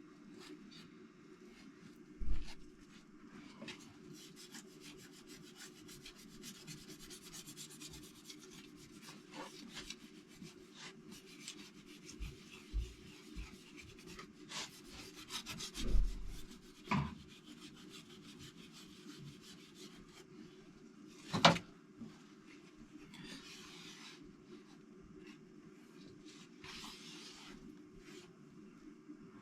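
A cloth rubbing and scrubbing over a dirty engine part in quick back-and-forth strokes, broken by a few sharp knocks of metal parts being handled, the loudest about two-thirds of the way through.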